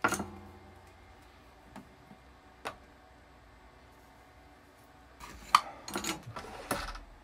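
Clatter from handling a soldering iron and its cable at a workbench. A sharp knock comes at the start, then a few faint ticks over a quiet stretch of soldering, and a cluster of knocks near the end as the iron is put back to the left, where the station and holder sit.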